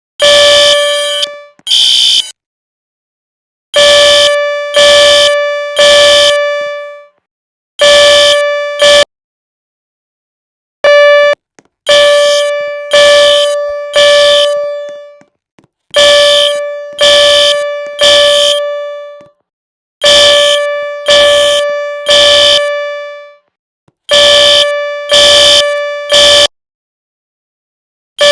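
Fire alarm horn sounding in a three-pulse evacuation pattern: loud, steady-pitched blasts in groups of three about a second apart, each group followed by a short pause, repeating every four seconds or so.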